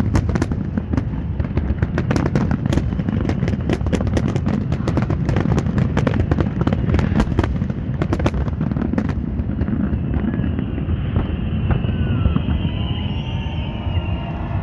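Dense crackling pops over a continuous low rumble of explosions. The crackle thins out after about nine seconds, leaving the rumble with a faint high whine coming in near the end.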